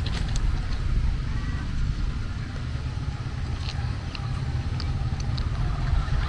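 Steady low rumble of a CC 201 diesel-electric locomotive running as it pulls a passenger train away from the station in the distance, with wind buffeting the microphone.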